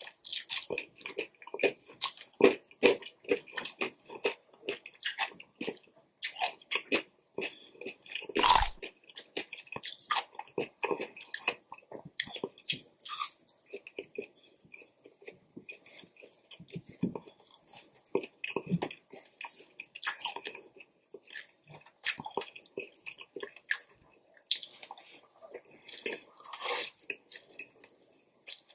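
Close-miked mouth sounds of a person chewing and biting takeout Chinese food, a steady run of irregular wet smacks and clicks. Near the end, chow mein noodles are slurped.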